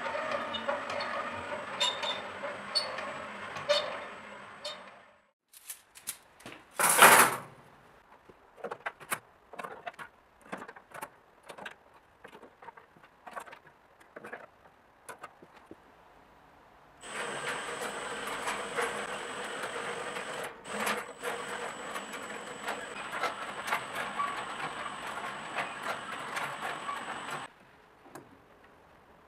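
Cordless drill driving a row of meshing steel gears that turn the barbecue skewers. The gear train runs steadily with a thin high whine for about five seconds, there is a brief loud rush, then scattered clicks and knocks of metal skewers being handled, and the mechanism runs again for about ten seconds before stopping abruptly.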